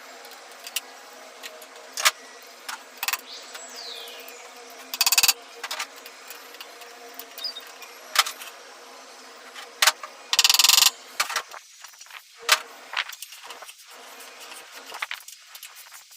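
Metal tools and parts clinking and knocking during hands-on repair work, with two short rattling bursts about five and ten seconds in, over a steady low hum.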